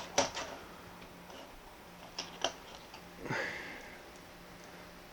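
A few small sharp clicks and a short rustle from a precision screwdriver set being picked up and opened, over a faint steady low hum.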